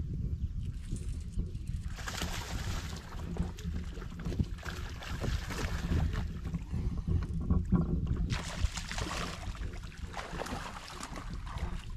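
Outdoor rumble on an open bass boat: water and wind against the hull and microphone while a hooked bass is fought. Two stretches of louder hissing, splash-like noise come about two seconds in and again after eight seconds.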